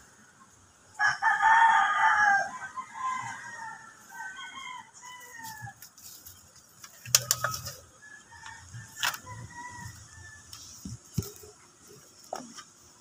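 A rooster crowing: one long crow about a second in, followed by fainter calls. A few sharp clicks come later, the first about seven seconds in.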